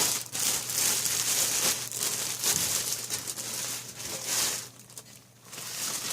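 Plastic wrapping crinkling and rustling in irregular surges as it is pulled off a computer case, easing to a brief lull near the end.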